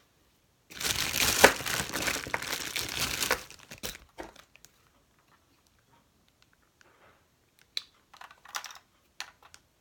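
Crinkling and rustling of packaging being handled for about three seconds, then a few light clicks and taps.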